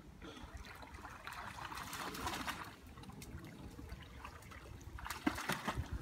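Fast-flowing river running, a steady rush of water that swells for a second or so. Near the end come a few sharp knocks and rustles as the phone filming is swung about.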